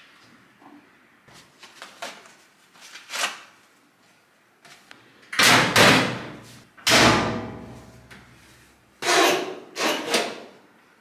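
Washer and dryer lids and doors being handled and shut: faint knocks and rustling of clothes, then four loud bangs in the second half, one with a short metallic ring.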